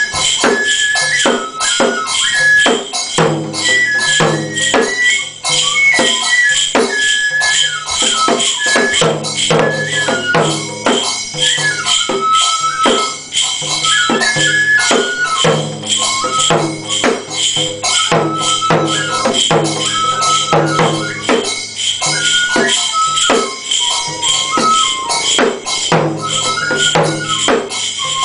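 Shinto kagura music: a Japanese bamboo flute (fue) plays a slow melody that steps between held notes, over a taiko drum struck repeatedly. The dancer's hand bells (suzu) jingle through it.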